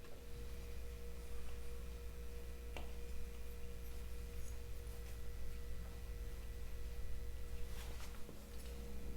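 Steady low hum with a faint, steady higher tone over it, and a couple of light clicks.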